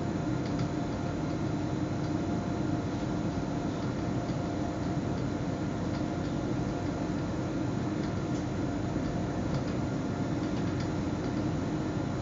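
Electric S-Bahn commuter train running at steady speed, heard from inside the driver's cab: an even rumble with a steady hum and occasional faint ticks.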